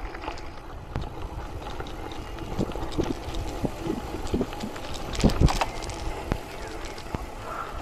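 Gravel bike rolling slowly over a loose dirt road: tyres crunching and crackling on the gravel with a low rumble, the bike rattling and knocking over bumps, a couple of louder knocks about five seconds in, and wind on the microphone.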